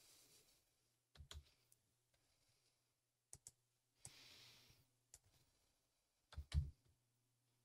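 A few faint, sharp clicks of computer keyboard keys and a mouse as numbers are typed into a dimension field, coming in short pairs spread over several seconds with near silence between.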